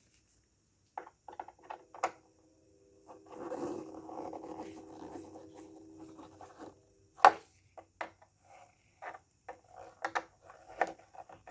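Plastic taillight housing being worked back into place on the car body: rubbing and scraping with scattered clicks and knocks, and one sharp loud knock about seven seconds in.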